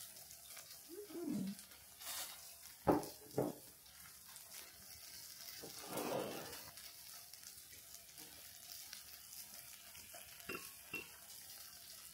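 Close-up eating sounds: chewing a mouthful of seasoned chive salad, with a short falling hum about a second in. Two sharp clicks of metal chopsticks come about three seconds in, and two lighter ones near the end.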